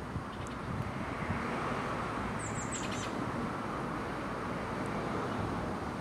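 European starling giving a few faint clicks and, about two and a half seconds in, three quick high whistles that fall in pitch, over a steady rushing background noise.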